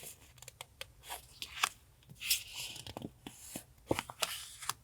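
Sheets of paper handled and shuffled: crisp rustles with scattered light taps and clicks.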